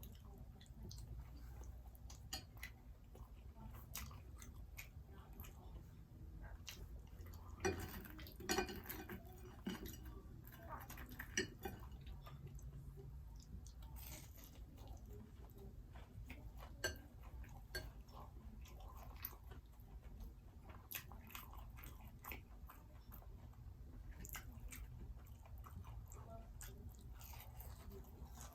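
Close-up chewing and biting of fried seafood, with many small crisp crunches and mouth clicks; a louder run of crunchy bites comes about eight seconds in.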